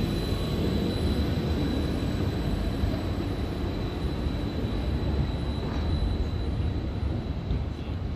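Tram running on its tracks: a steady low rumble with a thin, steady high-pitched whine over it.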